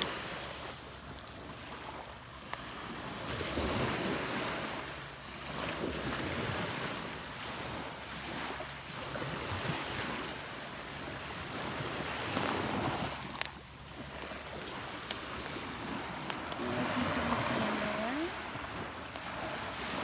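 Small waves washing up a sandy beach, the surf noise swelling and fading every few seconds, with some wind on the microphone.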